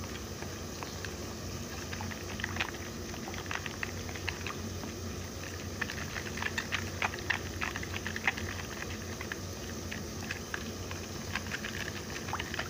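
A spoon stirring curry powder dissolved in water in a pot, with quick irregular clicks and scrapes of the spoon against the pot, thickest around the middle, over a low steady hum.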